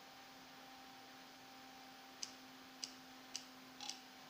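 Small relay clicking over and over, about two clicks a second, starting about two seconds in, over a faint steady hum. The VOX circuit's microphone is picking up the relay's own clicks and retriggering it, so it keeps switching by itself.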